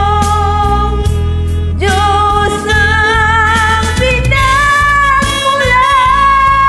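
A woman singing karaoke over a recorded backing track, holding long notes with vibrato; the melody steps up in pitch about two seconds in and again about four seconds in.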